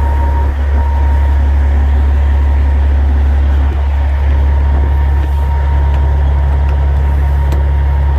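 Semi truck's diesel engine idling, a steady low hum.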